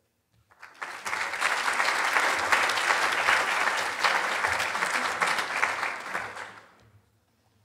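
Audience applauding, starting about a second in and fading out about a second before the end.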